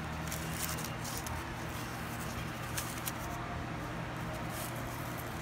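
Faint crinkling and rustling of plastic food-handling gloves and greaseproof paper as a fried pie is handled, with scattered small crackles over a steady low room hum.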